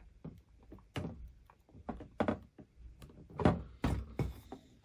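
Handling noise from plastic model-kit parts and their LED wiring: a handful of light clicks and knocks as a small wire connector is pushed together and the parts are set down on a tabletop. The loudest knock comes about three and a half seconds in.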